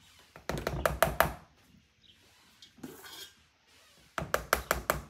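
A measuring cup knocking against the rim of a mixing bowl while whipped cream is scooped and tapped off into it, in two quick runs of knocks, one about half a second in and another about four seconds in.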